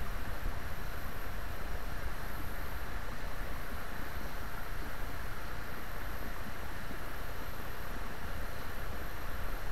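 Steady outdoor rushing noise with a low rumble and no distinct events.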